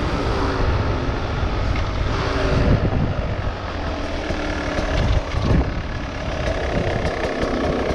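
Beta RR two-stroke enduro motorcycle engine running at low revs, its pitch wavering slightly, with a strong low rumble underneath.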